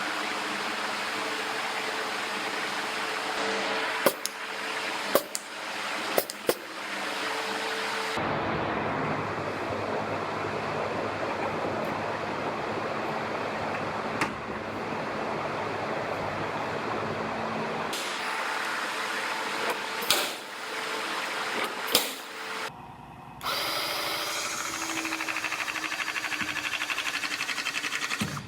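Handheld power tools running steadily in several stretches that change abruptly from one to the next, with a few sharp knocks in between.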